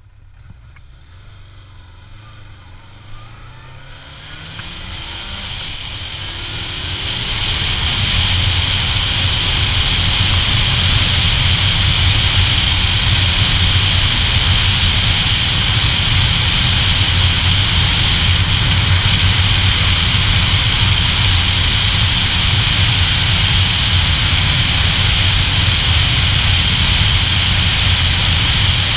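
Motorcycle engine pulling away, its pitch climbing over the first few seconds. Then a loud, steady rush of wind on the microphone builds up over the next few seconds and covers the engine at cruising speed.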